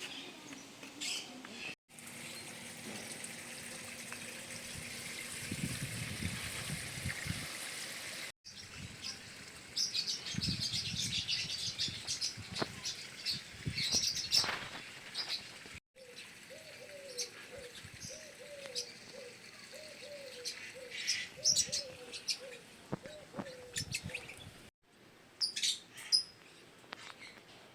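Birds chirping and calling over several short segments that break off abruptly, with a run of repeated low wavering notes in the later middle stretch.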